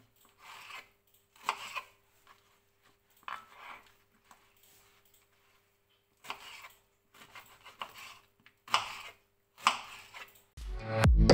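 A kitchen knife cutting pineapple slices into small cubes on a cutting board: single short strokes at uneven intervals, a second or two apart. Upbeat electronic music fades in near the end and quickly becomes the loudest sound.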